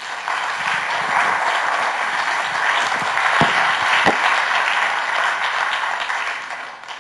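Audience applauding a speaker's introduction, dying away near the end.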